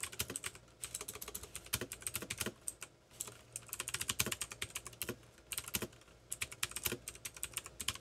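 Typing on a computer keyboard: a fast, irregular run of key clicks with a few short pauses.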